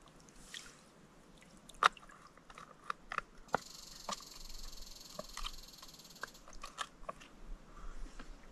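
Sharp plastic clicks and taps from a water bottle being filled in the lake and its cap worked, the loudest about two seconds in. A steady hiss runs for about three seconds from about three and a half seconds in.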